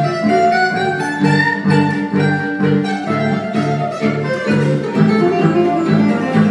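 Acoustic string band playing an instrumental passage: a fiddle melody that slides in pitch, over guitar and a steady low pulse of bass notes.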